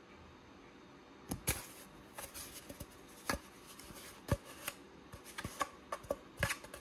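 An empty cardboard toilet roll being clawed and bitten by a kitten: irregular sharp taps and crinkles, starting about a second in.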